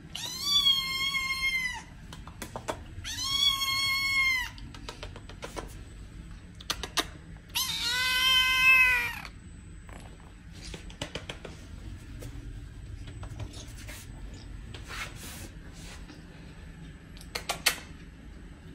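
A cat meowing: three long, drawn-out meows in the first nine seconds, the third lower-pitched than the first two. Scattered light clicks and taps follow.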